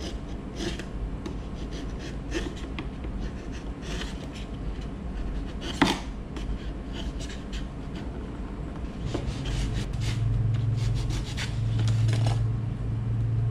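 A wood chisel paring down the braces on a guitar top: repeated short scraping cuts of the blade through the wood, with one sharper click about six seconds in. A low steady hum comes in a little past halfway.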